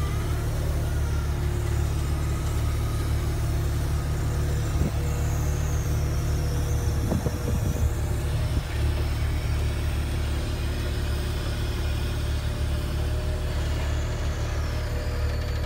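Truck-mounted knuckle-boom crane at work: the truck's diesel engine runs steadily to drive the crane's hydraulics as its grab lifts and swings a load of concrete blocks. A few short knocks come about seven to eight and a half seconds in.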